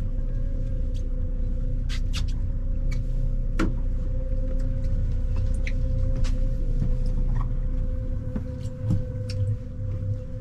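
Boat motor running steadily at trolling speed: a low rumble with a steady hum over it, and a few sharp light clicks now and then.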